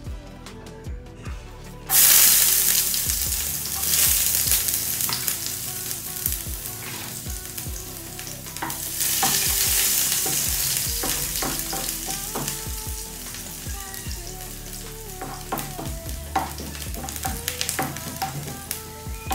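Chopped onion hits hot oil in a nonstick frying pan about two seconds in and starts sizzling loudly. It keeps sizzling while a wooden spoon stirs and scrapes it around the pan, and the sizzle swells again near the middle.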